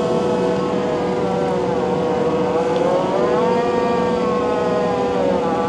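Takeuchi TL12V2 compact track loader driving a high-flow mulcher head through thick grass: a steady, loud engine and hydraulic drone under a whining tone. The tone sags in pitch about two seconds in and climbs back about a second later, as the cutting rotor loads up and recovers.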